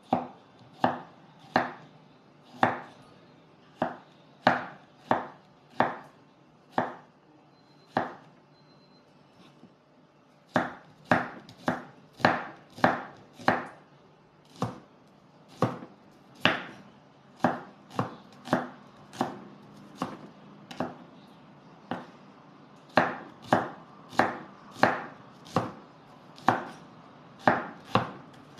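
Knife slicing shallots and garlic on a wooden cutting board: single sharp knocks of the blade on the board, about one or two a second, with a short pause about a third of the way through.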